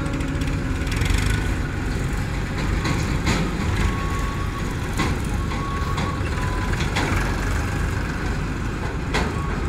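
Diesel engines running steadily: a JCB 3DX backhoe loader close by and farm tractors hauling trolleys past it. A few sharp knocks or clanks are heard over the engine rumble.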